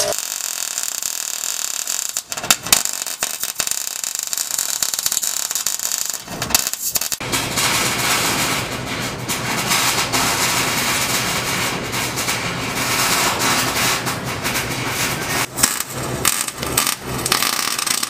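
Arc welding on the truck's underside: a continuous crackling, sizzling hiss with scattered sharp clicks and knocks, fuller and heavier from about seven seconds in.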